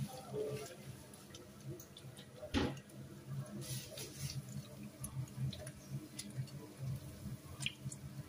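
Vegetable fritters frying in a pan of hot oil: a steady sizzle with scattered crackling pops, and one louder sharp clack about two and a half seconds in.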